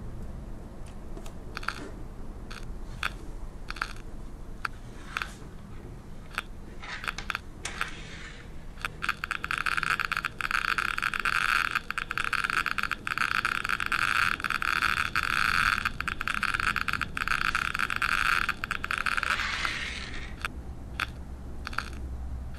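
Geiger counter board's piezo buzzer clicking once for each count from its Geiger-Müller tube: irregular clicks at about one a second, then from about eight seconds in a dense rapid crackle for some twelve seconds, then sparse clicks again. The rapid clicking is a high count rate from a radioactive sample set beside the tube; the sparse clicks are the background count.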